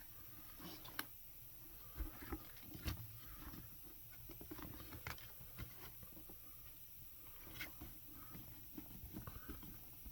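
Faint, scattered clicks and knocks of hand work on a leather boot at a cobbler's bench, a few sharper taps among them.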